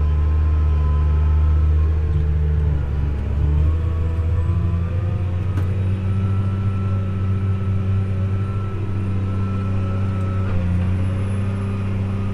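Tractor engine running steadily while pulling a field cultivator. Its note shifts once, about four seconds in, then holds steady.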